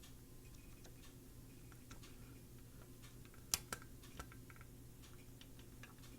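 Faint scattered clicks and ticks of a soldering iron and a capacitor being rocked back and forth as it is heated out of a double-sided circuit board, with a sharper click about three and a half seconds in. A steady low hum runs underneath.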